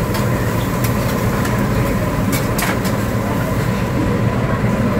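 Steady low rumble of a busy buffet's omelet station and dining room, with a few sharp clinks of utensils, twice in quick succession about halfway through.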